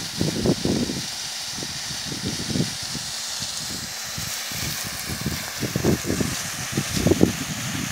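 Water jetting from a submersible pump's discharge pipe: a steady hiss of the spray, with irregular low rumbles of wind buffeting the microphone.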